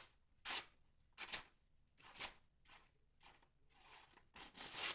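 Knife blade slicing through paper in a series of short rasping swishes, roughly one every half second, the last cut longer, near the end. It is an edge test of a freshly honed cheap knife that now cuts the paper.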